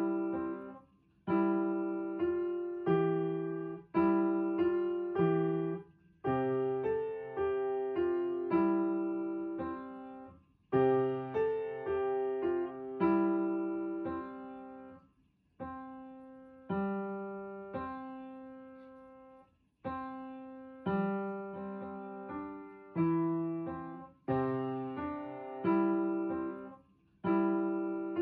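Background solo piano music: notes and chords struck and left to fade, in short phrases with brief gaps between them.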